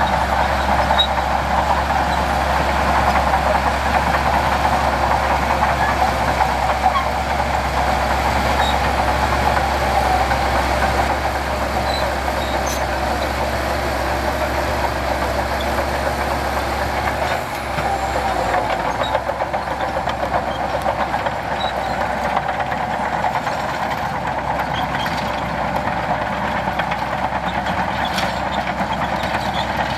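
Heavy diesel earthmoving machinery running steadily, with a deep rumble that drops away a little past halfway.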